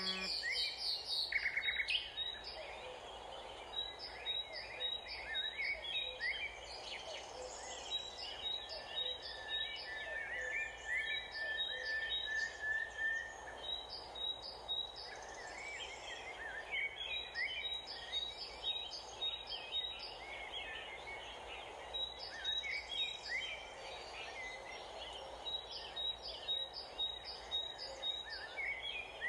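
Several wild birds chirping and calling over a steady outdoor background, with quick runs of high notes repeating every few seconds and a louder burst of calls in the first two seconds.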